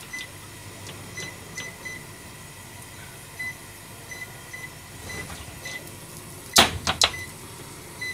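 Induction cooktop's control panel giving short, identical high beeps, one at a time at uneven spacing, as its buttons are pressed to set the heat. Two sharp knocks about six and a half and seven seconds in.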